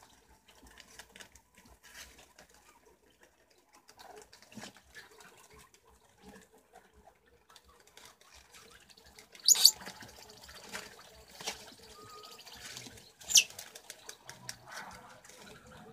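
Preás (wild cavies) rustling through leaves and chewing, heard as scattered soft clicks and rustles. Two sharp, high chirps stand out, one about nine and a half seconds in and one about thirteen seconds in; the second falls in pitch.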